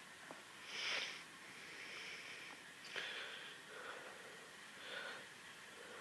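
Faint breathing and sniffing close to the microphone, a soft breath about every two seconds.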